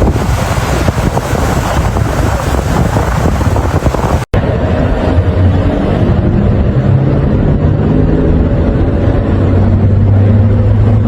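Loud wind buffeting the microphone over a low engine drone. After an abrupt cut about four seconds in, a steady low engine hum continues.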